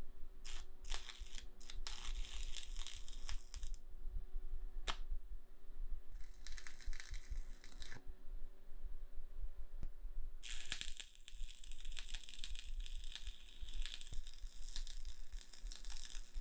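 Arc welding crackling in three runs, short at first and a long one of about six seconds near the end, with a few single clicks between runs and a steady low hum beneath.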